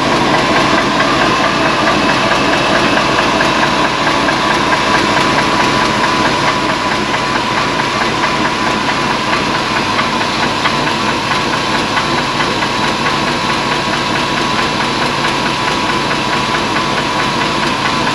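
Worn engine idling steadily as it warms up, with a light rattle that the owner takes for piston slap from three chewed-up cylinders.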